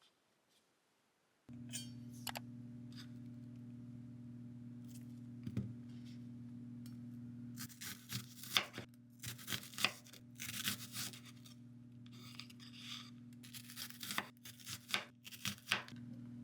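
A steady low hum starts about a second and a half in. From about halfway through, packaging is handled and torn open in a run of short, quick rustling and tearing bursts.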